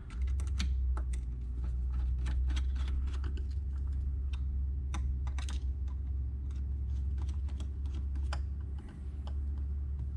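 Phillips screwdriver tightening small mounting screws into a metal bracket: irregular light clicks and ticks of the tip and screws, over a steady low hum.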